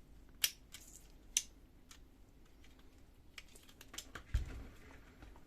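Sharp plastic clicks and light knocks from unplugging the wire connectors from the heating element of a Samsung Xpress laser printer's fuser unit. Two loud clicks come in the first second and a half, then several lighter ticks and a dull knock.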